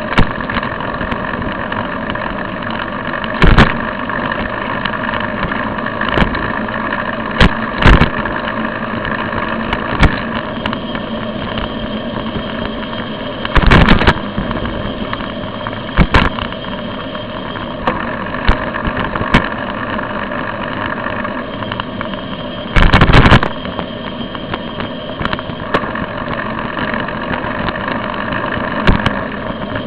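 Steady hum of road and traffic noise picked up by a camera riding on a bicycle with cars following close behind, broken by sharp knocks or clatters now and then, the longest about 23 seconds in.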